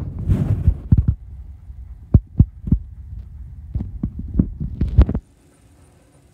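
Handling noise from a hand-held camera: low rumbling and rubbing with a string of irregular knocks, which stops suddenly about five seconds in.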